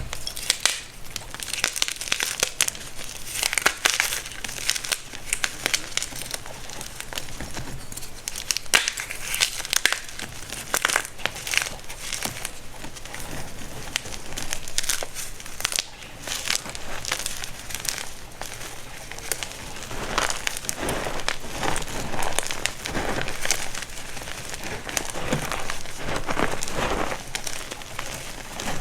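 Homemade baked baking soda crunching and crumbling in a long run of irregular, crackly crunches.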